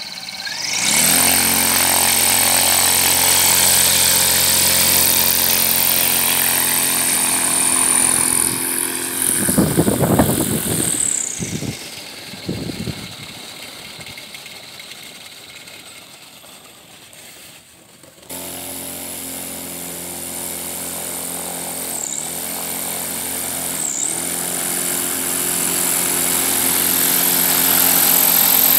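Electric motor driving the propeller of a homemade air sled: a steady high whine over a lower hum. About ten seconds in there is a loud rushing noise, then the whine falls in pitch and fades. The whine comes back abruptly, dips briefly twice, and grows louder near the end.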